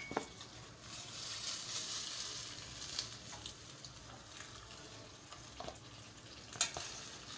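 Chicken pieces sizzling in hot oil in a stainless steel frying pan, with a few clinks and scrapes of a metal spatula against the pan: a sharp one at the very start and another near the end.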